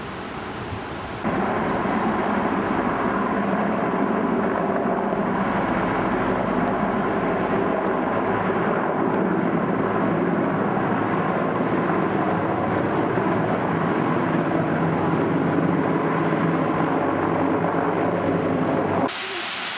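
Waterfall, a steady roar of falling water, starting suddenly about a second in and cutting off near the end.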